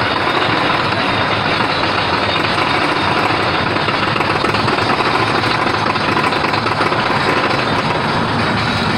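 Mine train roller coaster running along its steel track, a steady loud rattling clatter of the wheels heard from a rider's seat.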